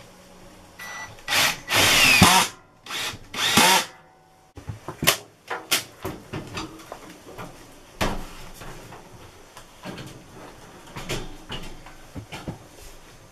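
Cordless drill driving screws into a heater's wall-mounting bracket in four short runs over the first four seconds. After that come scattered knocks and clunks as the heater's metal cabinet is lifted and fitted onto the bracket.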